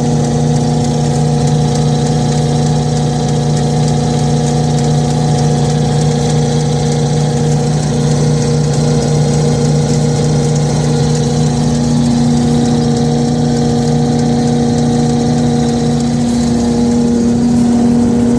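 Diesel engine of a 2004 Mack truck-mounted Bergkamp M2 paver running steadily at idle, an even, constant hum with a slight change in tone about sixteen seconds in.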